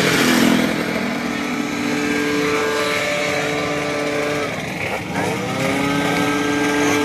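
Two-stroke racing scooter engine running at a steady pitch. About five seconds in it drops off, then revs back up and holds steady again.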